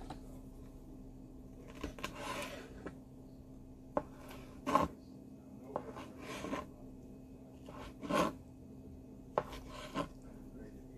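Kitchen knife slicing boiled okra on a plastic cutting board: irregular sharp knocks of the blade on the board, some with a short scraping rasp, over a faint steady low hum.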